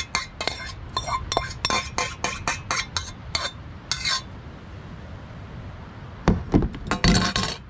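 A metal fork and spoon scraping and knocking pasta sauce out of a stainless steel saucepan onto a plate: quick metal clinks, about four a second, for the first three and a half seconds. A few more clinks and knocks come near the end after a short lull.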